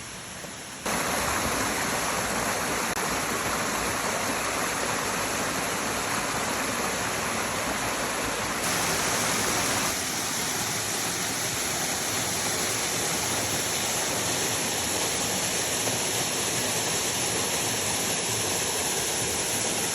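Steady rush of a waterfall. It steps up in loudness about a second in and shifts in tone twice near the middle.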